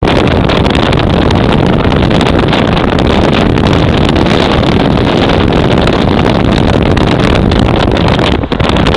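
Steady rush of wind on the microphone over the road noise of a moving car, with one brief dip shortly before the end.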